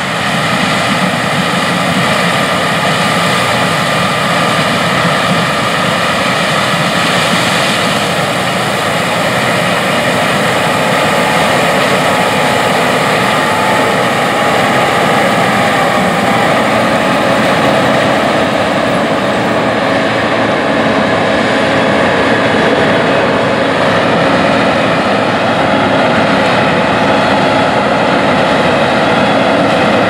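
John Deere S780 combine on tracks running while harvesting corn with a 12-row Geringhoff corn head: a loud, steady drone of engine and threshing machinery with several steady whining tones, growing a little louder in the second half as the combine comes nearer.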